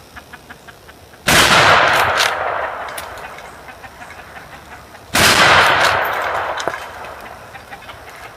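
Two rifle shots about four seconds apart from a Winchester Model 1886 short rifle in .45-90 firing black-powder loads, each a sharp blast followed by a long echo that fades over about two seconds.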